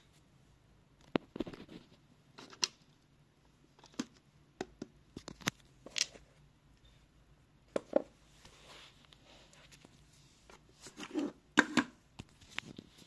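Irregular clicks, light knocks and brief rustles of objects being handled in a small quiet room, about a dozen scattered sounds, the busiest cluster near the end.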